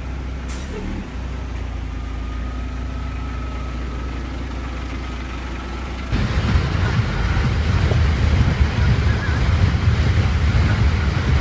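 A steady low mechanical hum, like a vehicle running. About six seconds in it cuts abruptly to a louder, rough rumbling noise like wind buffeting the microphone.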